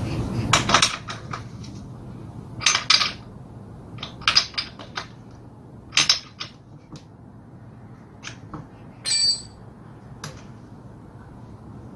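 Metal hand-tool clicks and clinks on a Honda GX35 brush cutter's engine as a new spark plug is fitted: a dozen or so short, scattered strikes, mostly in pairs, with one brief ringing clink about nine seconds in.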